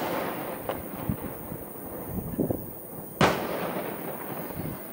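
Aerial firework shells bursting overhead: the dying echo of one burst, a few smaller thuds, then one loud sharp boom about three seconds in with a long echoing tail.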